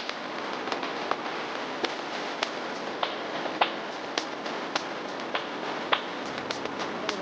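Steady rain hiss with irregular sharp drips tapping through it, one or two a second.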